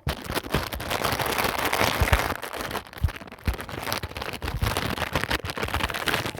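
Plastic packaging crinkling and rustling in the hands, a dense run of small crackles with a few soft knocks.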